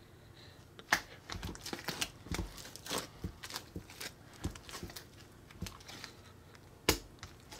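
Sticky milk slime being stretched by hand and pulled up off a glass plate: irregular wet clicks and pops, with two sharper snaps about a second in and near the end.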